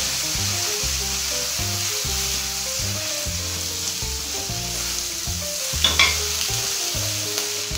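Rice, peas and sofrito sizzling in a paella pan while being stirred with a spoon, a steady frying hiss, with a short knock about six seconds in. Background music with a steady beat plays underneath.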